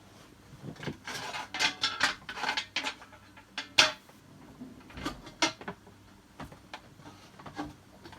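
Pokémon cards and their packaging being handled and put away: a busy run of rustles, scrapes and sharp clicks with a clattery edge, the sharpest click about four seconds in, then a few lighter taps.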